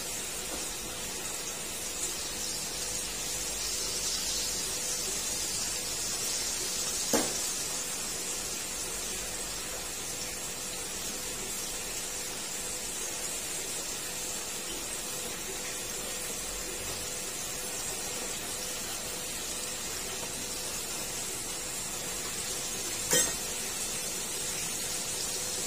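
Crab pieces deep-frying in a wok of hot oil: a steady sizzle. A sharp clink comes about seven seconds in and another near the end.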